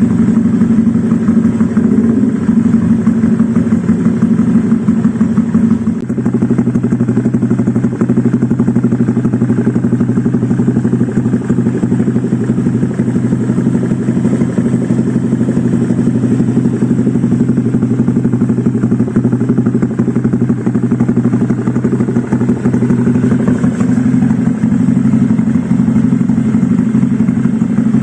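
Honda Vario 125 scooter's single-cylinder four-stroke engine running at idle through an ABF Racing GP D-Series aftermarket silencer with a fully packed baffle, giving a steady, bassy exhaust note. The note changes about six seconds in.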